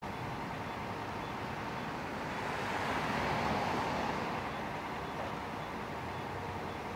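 A road vehicle passing by, its sound swelling and fading about three to four seconds in, over a steady low engine hum.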